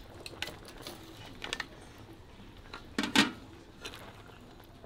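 A metal serving spoon clinking and scraping against a metal pot as boiled crayfish are scooped out: a few scattered clinks, the loudest about three seconds in.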